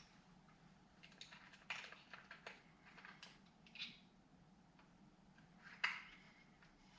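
Faint clicks and light taps of small hard objects being handled, with one sharper click a little under six seconds in, over a low steady hum.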